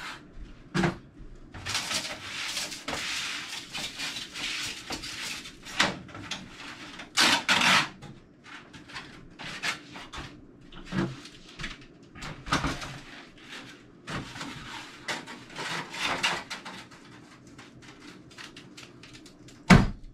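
Renovation work by hand on a gutted wood-framed wall: irregular knocks, scrapes and clatters, with a sharp loud knock near the end.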